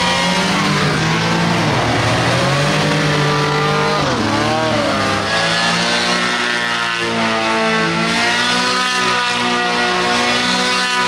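Hovercraft's swapped-in engine running hard under load, its revs dipping and climbing back several times, most sharply about four seconds in, then holding steadier.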